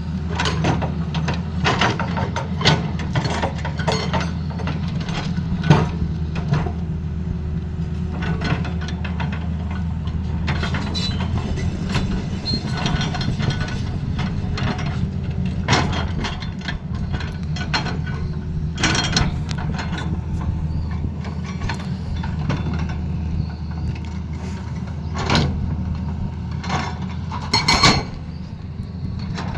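Excavator's diesel engine running steadily, with irregular metallic clanks and knocks from the machine working.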